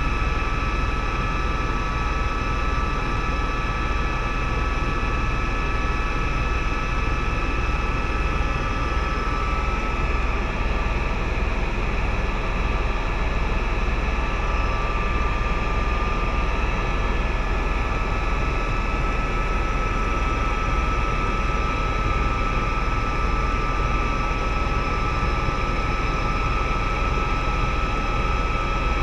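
Helicopter in flight, heard from inside the cabin: a constant low rumble with a steady high engine whine over it, unchanging throughout.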